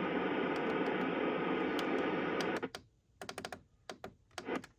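Steady hiss of weather radio static that cuts off suddenly about two and a half seconds in. It is followed by a string of short, irregular clicks like typing on a computer keyboard.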